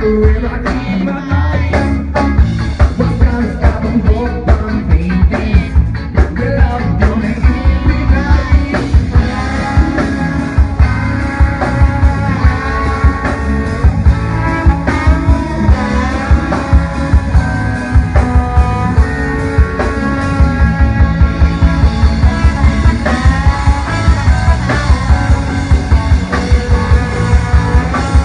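A band playing a rock song: singing over guitar, with bass and a steady drum beat that come in heavily about a second in.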